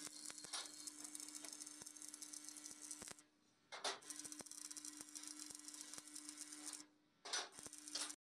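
Stick (arc) welding on steel: the electrode arc crackling over a steady buzz. The arc breaks off briefly twice, about three seconds in and about seven seconds in, and stops just before the end.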